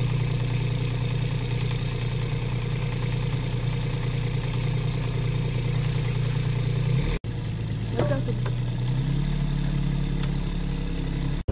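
A small engine idling steadily with a low, even hum. It cuts off abruptly about seven seconds in, then carries on with a deeper hum.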